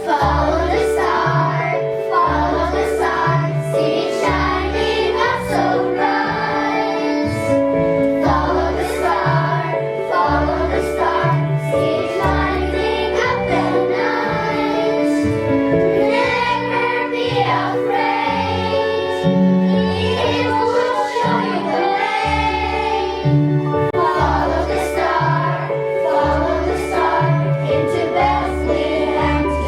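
Children's choir singing a song over a backing track with a steady beat and bass line.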